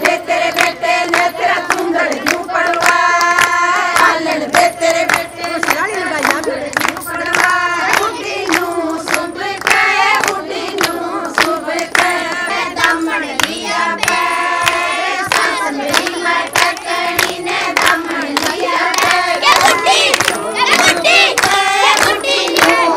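Women singing a Haryanvi folk song together, with steady rhythmic hand clapping keeping the beat.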